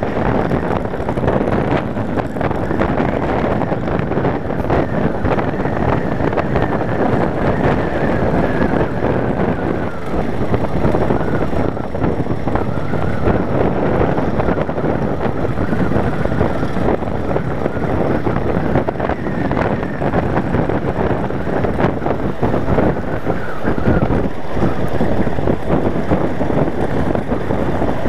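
Onboard sound of a Yamaha Wildstar V-twin cruiser riding at road speed: steady wind noise buffeting the microphone over the running engine.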